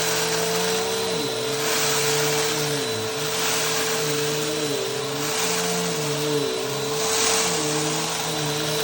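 Vacuum cleaner running with a steady motor whine, its sound swelling and easing every second or two.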